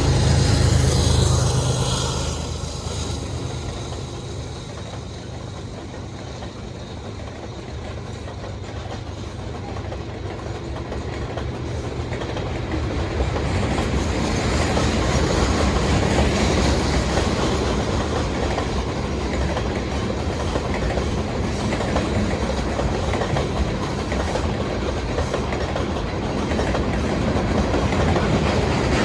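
A freight train passing. A diesel locomotive's low engine drone fades over the first couple of seconds. Then the freight cars roll by with a steady clattering rattle of wheels on the rails, which builds up from about twelve seconds in.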